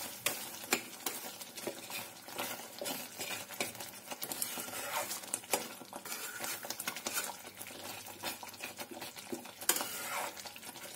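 A spatula stirring thick cashew curry gravy in a kadhai, scraping and clicking against the pan many times at an uneven pace.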